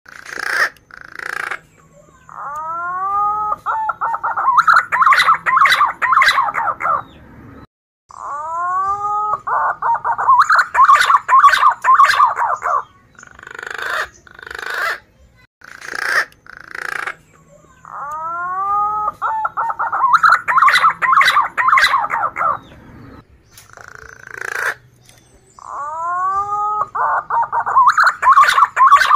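Male punai daun green pigeon singing its lure song: each phrase opens with a few curving whistled notes and runs into a few seconds of rolling, warbling whistles. The phrase repeats four times, with short clipped notes between phrases.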